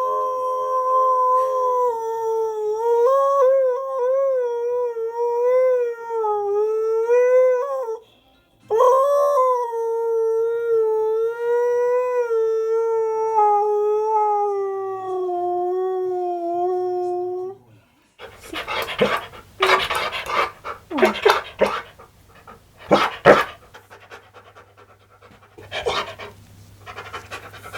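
Husky-malamute howling in two long, wavering notes of about eight and nine seconds, the second sliding slowly down in pitch. After that comes a rougher, noisy stretch of short loud spells.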